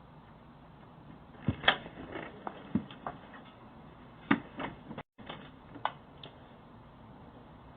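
A few irregular clicks and knocks over a faint steady hiss, the two loudest about a second and a half in and just past four seconds, with the sound cutting out completely for a moment about five seconds in.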